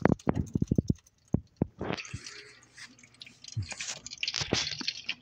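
Thick blended guava puree pouring from a blender jar into a mesh strainer: a quick run of wet plops in the first second, then softer wet squishing as it slides out.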